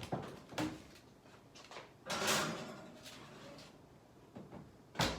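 Kitchen handling sounds: two light knocks at the start, a swishing slide about two seconds in, and a sharp knock just before the end.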